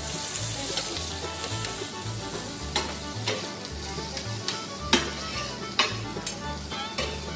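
Chopped beef, onion, mushrooms and green pepper sizzling on a flat-top griddle while two metal spatulas scrape and clack against the plate several times, over background music.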